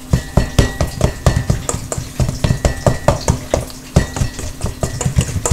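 Pampered Chef Mix 'N Chop being worked through ground turkey meatloaf mixture in a bowl: a fast, irregular run of short knocks and stirring sounds as the tool hits the bowl.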